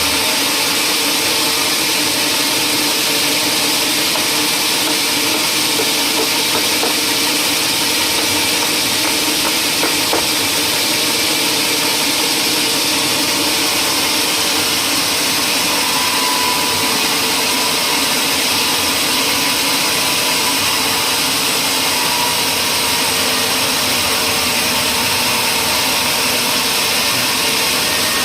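Steady whir of powered woodworking machinery with a strong hiss, holding an even level with no breaks or changes.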